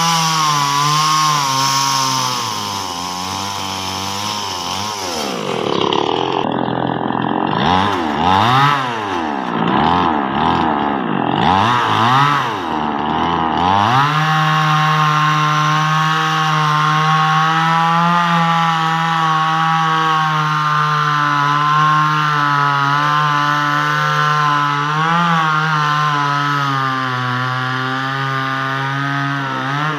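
Chainsaw cutting through a felled tree trunk, its engine held at a steady high pitch under load. From about five seconds in until about fourteen seconds its pitch drops and swoops up and down as the throttle is eased off and blipped, then it runs steady and high again while cutting.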